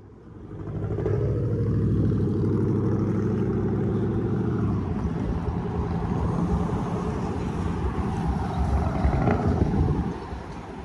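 A vehicle engine running close by. It comes up loud and low about half a second in, holds a steady note, then turns uneven and lumpy midway through, and drops away near the end.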